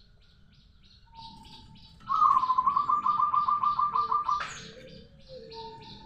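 Zebra dove (perkutut) singing its long rolling trill: a fast run of about a dozen quick, even notes lasting just over two seconds, followed by a few lower coos.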